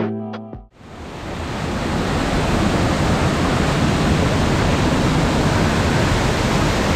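Steady roar of rushing water, fading in about a second in and then holding even. A brief tail of guitar music ends just before it.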